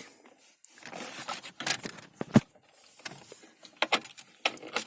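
Handling noise of car stereo wiring and plastic parts: rustling with several sharp clicks and taps as cables and connectors are moved.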